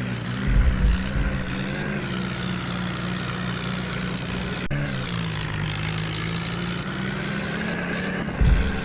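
Heavy diesel engine running steadily under load, with heavier low rumbles about a second in and again near the end, and a single click near the middle.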